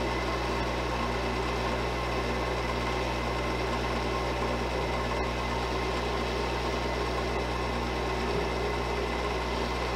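Wood lathe motor running at low speed with a steady, even hum.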